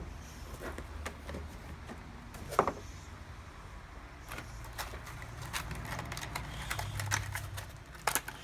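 Light clicks and knocks of a plastic headlight housing being handled as the rubber dust caps are pulled off its back, with a short squeak about two and a half seconds in, over a low steady hum.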